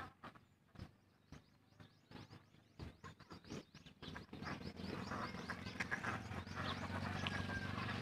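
A flock of domestic ducks quacking: scattered short calls at first, then from about halfway a dense, overlapping chorus of quacks that grows louder.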